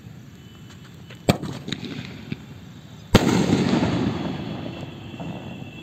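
Large Diwali sky-shot firework: a sharp crack about a second in as the shell launches, then a loud bang about three seconds in as it bursts. The bang is followed by a tail that fades over about two seconds.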